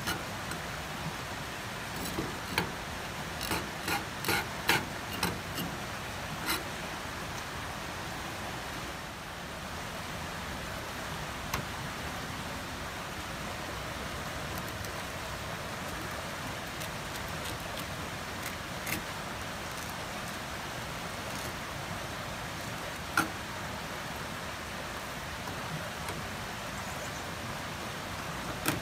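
A kitchen knife clicking and scraping on a plastic cutting board while a small kisu (Japanese whiting) is filleted: a cluster of sharp ticks in the first several seconds, then a few single ones. A steady rushing noise runs underneath.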